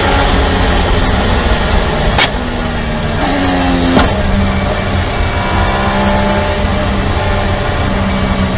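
Onboard sound of an IndyCar's twin-turbo V6 engine with heavy wind and road rush, the engine note changing in steps as the car slows hard from high speed and shifts down. Two sharp knocks cut through, about two and four seconds in.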